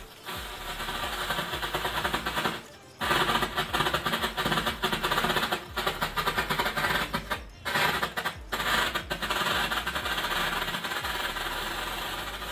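Strobe ('flash light') firecracker burning on the ground with a rapid, dense crackle that flares and dies back in quick pulses, breaking off briefly about three seconds in and twice around eight seconds.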